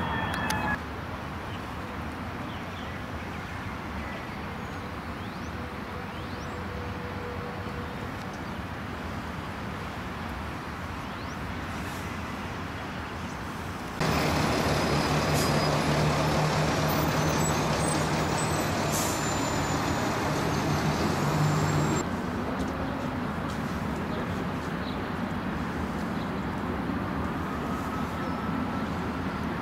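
Steady outdoor street noise with vehicle engines running. It changes abruptly with each cut in the footage. For several seconds around the middle it is louder, with a steady low engine hum.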